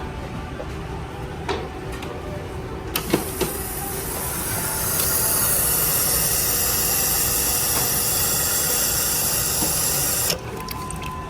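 Kohler Highcliff toilet flushing: a couple of clicks from the handle, then a steady rushing hiss of water that holds for about six seconds and cuts off suddenly.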